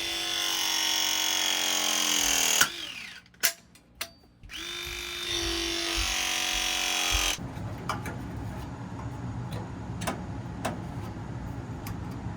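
ProPress pressing tool crimping copper fittings twice. Each press is a motor whine of about three seconds whose pitch sinks slowly as it loads, the first ending in a sharp click. After the second press, a low steady rumble with scattered light clicks.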